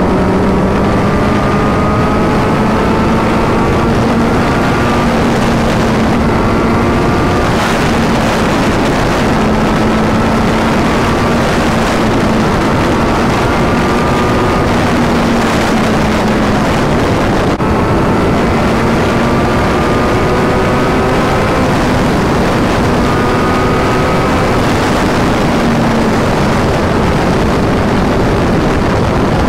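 Kawasaki Z900's inline-four engine running at high revs in sixth gear at highway speed, its pitch slowly climbing in stretches as it accelerates, under a heavy rush of wind noise.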